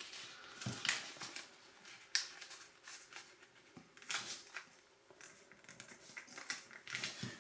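Origami paper rustling and crackling in short, irregular crinkles as it is folded and creased by hand during a squash fold.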